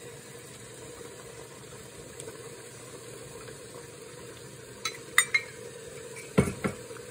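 Banh beo batter ladled and spooned into foil tins on a metal steamer tray over steaming water. A steady hiss of steam runs under light metal clinks of ladle and spoon against the tins about five seconds in, then two louder metal knocks on the pot near the end.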